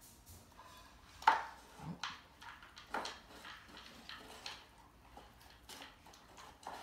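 Great Dane puppy eating dry kibble from a small bowl: irregular crunches and clinks of kibble and bowl, with a sharp knock about a second in, the loudest sound.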